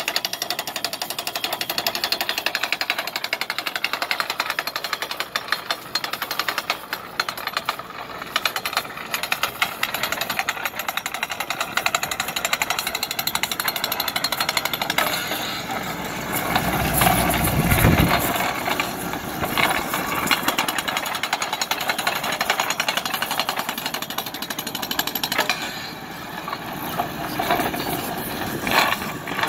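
Hydraulic driving head on a crawler excavator's mast hammering rapidly and steadily as it drives a steel ground-screw pile into stony ground. A louder low rush swells briefly partway through.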